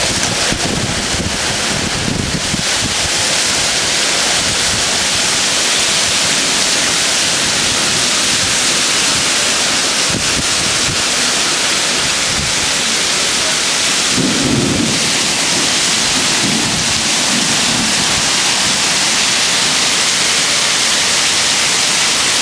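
Heavy rain pouring down in a wind-driven thunderstorm, a loud steady hiss. Low rumbles of thunder come about two seconds in and again about two-thirds of the way through.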